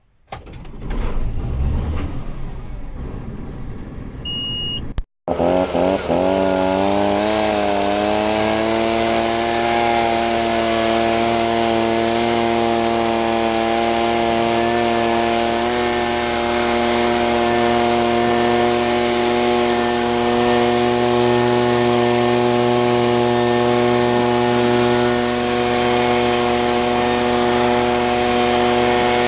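Gas-powered leaf blower engine coming up to speed about five seconds in, its pitch rising and then holding steady as it runs at high throttle to blow debris off a mower.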